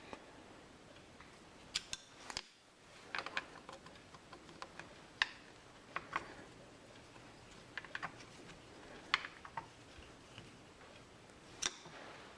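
Scattered light metallic clicks and clinks, about a dozen, irregularly spaced: small steel parts and tools being handled and set down on a workbench.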